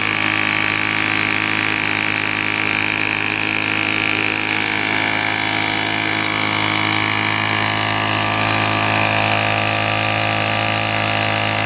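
Craftsman Pro backpack leaf blower's small gasoline engine running steadily at an even speed after a cold start, with a constant whine from the blower.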